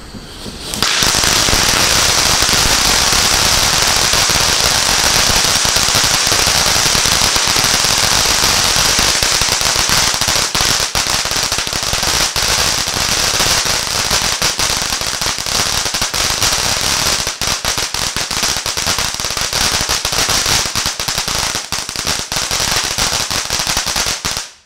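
Supreme Candy Box firework fountain catching about a second in and then spraying with a loud, steady hiss. From about halfway on, dense crackling pops join the hiss, and the sound cuts off abruptly near the end.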